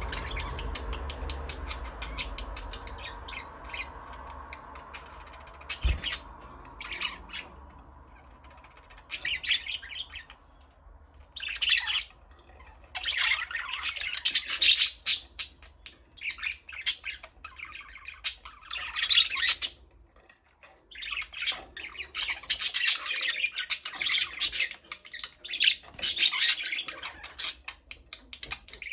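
Budgerigars chirping and squawking in quick bursts, sparse at first and then busier and louder through the second half. A low steady hum sits under the first few seconds, and a single knock comes about six seconds in.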